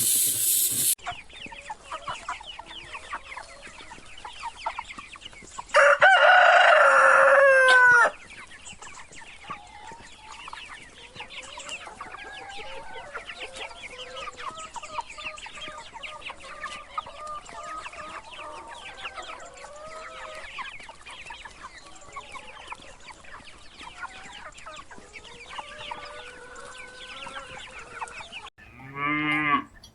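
Chickens clucking, many short calls overlapping. A rooster crows loudly once, about six seconds in: one crow of about two seconds that falls in pitch at the end. A loud hiss fills the first second.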